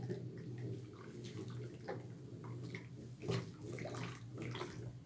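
Thick cooked tallow soap sloshing and splashing as it is stirred briskly with a spatula in an enamel basin, with irregular strokes and scrapes and one louder splash about three seconds in, while alcohol is being worked into the soap base. A steady low hum runs underneath.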